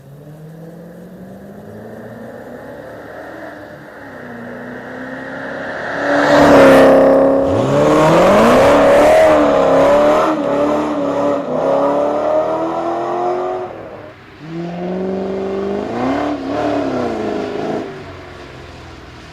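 Ford Falcon Pursuit 250 ute's engine being driven hard, revs climbing and falling through the gears. It gets much louder about six seconds in, drops off briefly before another surge, then settles lower near the end.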